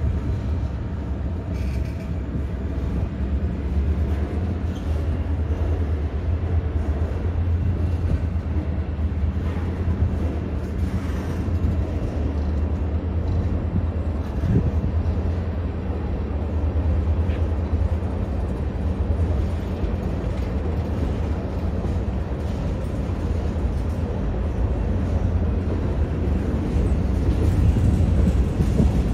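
Freight train rolling slowly past: a steady low rumble of the cars' wheels on the rails.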